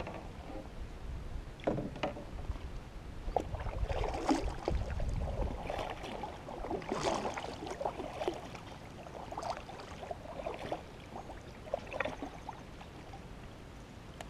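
Kayak paddle splashing in the water, with scattered knocks and clatter of the paddle and gear against the kayak's hull.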